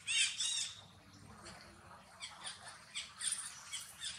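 High-pitched animal calls: two loud, arched squeaks right at the start, then a run of shorter, fainter chirps in the second half.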